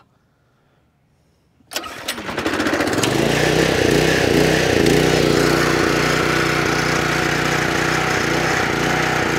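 Small gasoline engine of a Generac 3100 PSI pressure washer starting up about two seconds in, catching quickly and settling into a steady, loud run.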